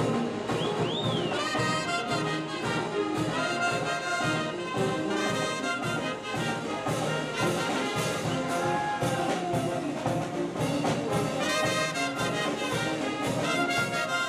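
Brass band playing a lively tune: trumpets and saxophones carry the melody over a steady bass drum and cymbal beat.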